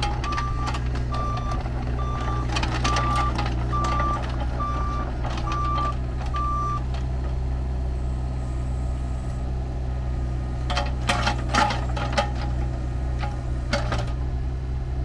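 Bobcat E20 mini excavator's 13.9 hp diesel engine running steadily while the hydraulics work the boom and bucket. A backup alarm beeps about twice a second and stops about halfway through, and a few sharp knocks come near the end.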